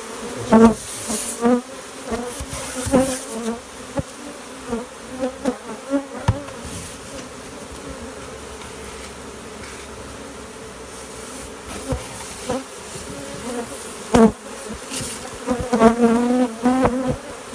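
A swarm of honeybees buzzing steadily, with single bees flying close by now and then, their pitch wavering. A few sharp knocks come through the buzzing, clustered near the start and near the end.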